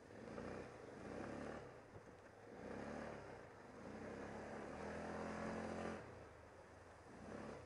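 ATV engine running under throttle, its revs swelling and dropping several times as the throttle is opened and eased off.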